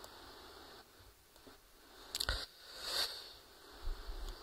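Faint room tone at a lectern microphone with handling noises: a sharp click a little past two seconds in, a short breathy hiss about a second later, and a couple of soft taps near the end.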